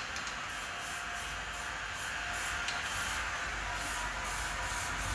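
Automotive primer being sprayed onto a car body panel: a steady spraying hiss that swells and fades about twice a second in its highest range.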